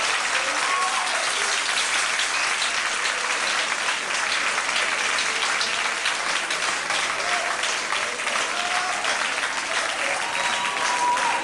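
Audience applauding steadily in a hall as a band is introduced.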